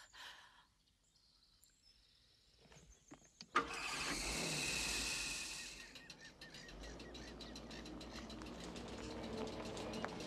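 After a few quiet seconds, a car engine starts with a sudden catch and runs. The station wagon then rolls slowly backwards on a dirt road, its tyres crunching over gravel.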